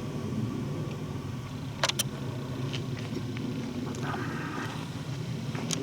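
Wind on the microphone as a steady low rumble, with a few sharp clicks about two seconds in and again near the end.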